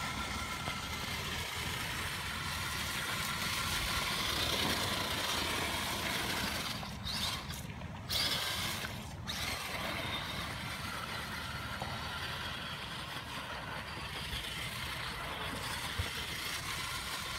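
Electric drive of an International Scout II RC truck whining steadily as it drives through muddy puddles and over gravel, with water splashing and tyres on loose stones.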